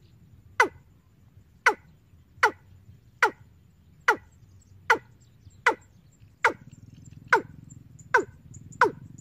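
Recorded call of the bird sold as 'ayam tembaga' played through a horn loudspeaker on a bird-trapping amplifier: short, sharply falling notes repeated about once every 0.8 seconds. A low hum comes in about six and a half seconds in.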